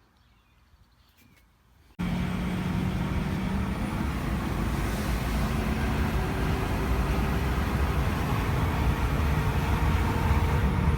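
Steady motor vehicle running, with a low engine hum under rumble and road noise. It starts abruptly about two seconds in, after near quiet.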